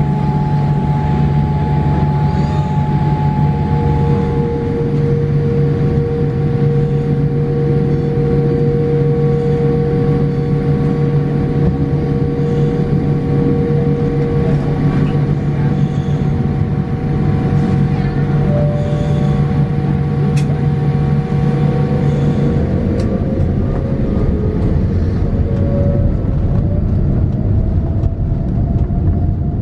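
Boeing 787-8 cabin noise heard from inside the economy cabin during taxi: a loud, steady engine and air-system hum with several steady tones, some of which rise in pitch over the last few seconds.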